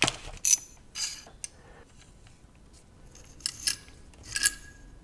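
Light metallic clinks and taps of steel tie rod parts being handled and turned on their threads, a few in the first second and a half and a few more near the end.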